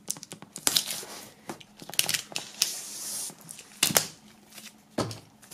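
Plastic shrink-wrap film being pierced with a knife and torn off a cardboard box: irregular crackling, crinkling and tearing, with a few sharp snaps, the loudest about four seconds in.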